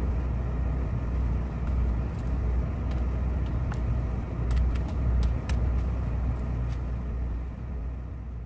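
Steady low engine rumble of a tugboat's running machinery. In the middle come a dozen or so light, sharp clicks of calculator keys being pressed.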